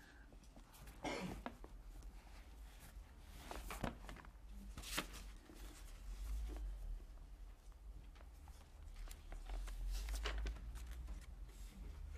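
Paper rustling as book pages are leafed through, with scattered soft clicks and a few low handling thumps.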